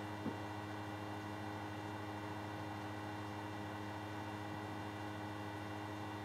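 Steady electrical mains hum with a buzzy edge, the background of the recording, with one brief faint tap shortly after the start.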